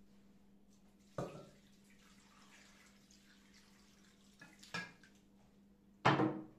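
Water poured from a glass jug into a glass bowl of chard stalks, splashing for about three and a half seconds. A louder knock comes near the end.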